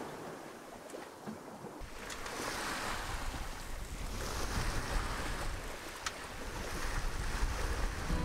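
Wind and sea on a sailboat under way: waves and water rushing past the hull in surging swells of hiss, with wind buffeting the microphone. About two seconds in, a heavy low wind rumble sets in.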